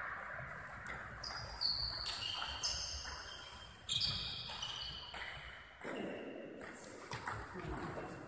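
Table tennis ball clicking off the table and the rubber bats, each hit a sharp click with a short high ring, irregular and echoing in a large hall.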